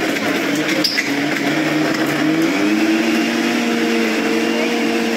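Electric kitchen mixer grinder switched on and running, grinding chutney in its jar: a loud, steady motor whir whose pitch rises a little about halfway through.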